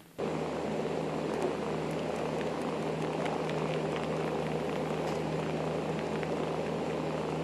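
A steady hiss with a low hum beneath it and a few faint small clicks. It starts abruptly just after the beginning.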